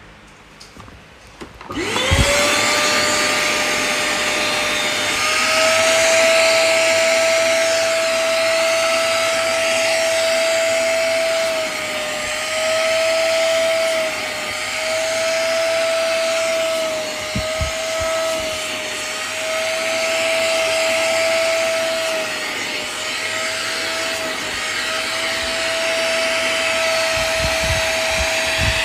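Hoover CleanSlate carpet and upholstery cleaner's suction motor switching on about two seconds in, spinning up with a rising whine, then running steadily. Its pitch dips briefly now and then as it works.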